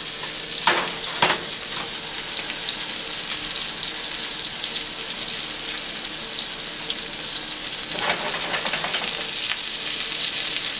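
Red snapper fillet sizzling skin-side down in hot oil in a nonstick frying pan, a steady hiss as the skin crisps. About a second in come two sharp knocks, as of a pan set down on the stove top.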